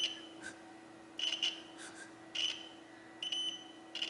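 Multimeter continuity beeper sounding short, high beeps about once a second, four times, as the probes are touched across the DIP switch's contacts. Each beep means a closed, conducting switch contact.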